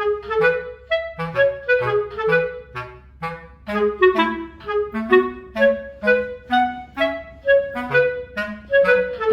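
Background music: a tune of short, detached notes, several a second, over a simple bass line.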